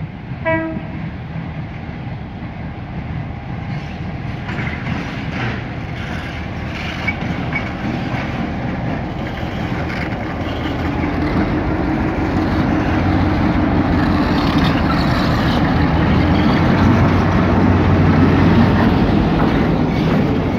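Trenes Argentinos diesel locomotive 319-237 (class J16) drawing slowly past. It gives one brief horn toot about half a second in. After that its engine runs, growing louder as it nears and passes, with clicks and squeaks from the wheels and the wagons behind.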